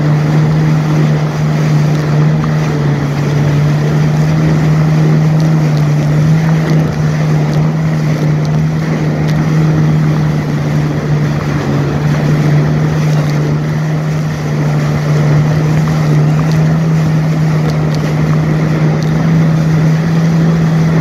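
Jet ski engine running at a steady cruising speed, a constant hum, with the rush of water and wind over it.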